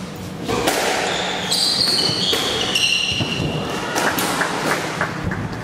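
Squash rally: the ball cracking off rackets and the walls, with a run of high shoe squeaks on the wooden court floor from about one and a half to three and a half seconds in.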